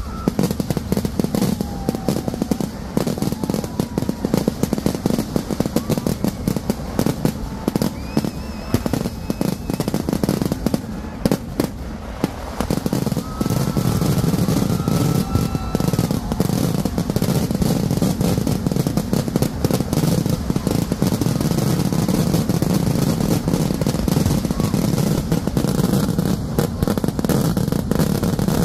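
Kerala temple-festival fireworks (vedikettu): a dense barrage of firecrackers and aerial shells going off in rapid, overlapping cracks and booms. About halfway through it thickens into a near-continuous low rumble of explosions.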